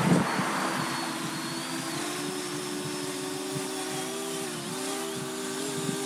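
Parrot Anafi quadcopter hovering close by, its propellers making a steady buzzing hum whose pitch wavers slightly as the motors hold it in the wind. A short burst of wind noise at the very start.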